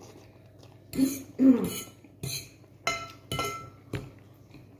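Close-up eating sounds from a mouthful of fettuccine: a few short slurping and mouth noises, then a metal fork clinking and scraping against the ceramic bowl as more pasta is twirled.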